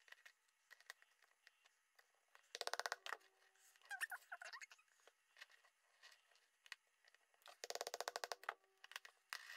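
Faint handling of metal snap fastener parts and a hand snap press on a worktable: light taps, two short bursts of rapid clicking about three seconds in and again about eight seconds in, and a small squeak in between.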